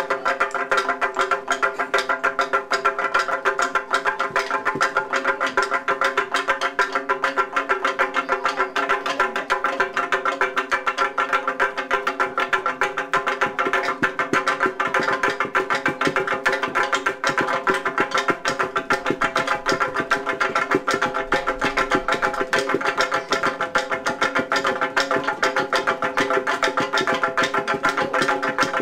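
Percussion music: sticks striking at a fast, even rhythm over steady ringing pitched tones.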